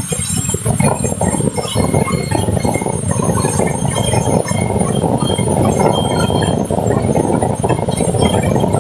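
Sawmill machinery running while cutting a large teak log: a loud, dense rattling clatter with scattered metallic clinks.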